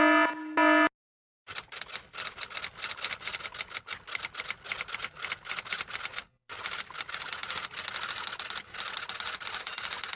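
A typing sound effect: a fast, uneven clatter of keystroke clicks starting about a second and a half in, with one short break near the middle. In the first second, a pitched beeping effect ends.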